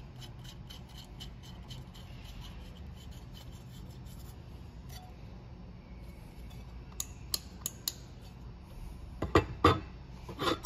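Small rocker switch being pressed into an aluminium front panel, with a few sharp clicks a little past halfway as it snaps in. Near the end come a few louder knocks as the aluminium panel is handled and set down.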